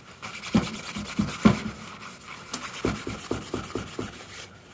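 Paper towel rubbed in a series of uneven strokes over a metal engine cylinder liner, wiping off excess red dye penetrant before the developer goes on.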